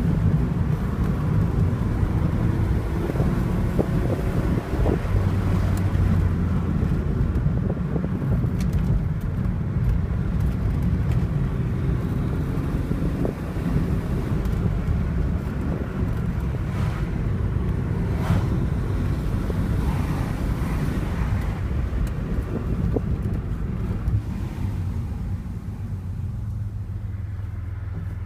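Alfa Romeo GTV V6 Turbo's engine running steadily as a low rumble, easing to a steadier, slightly quieter hum near the end.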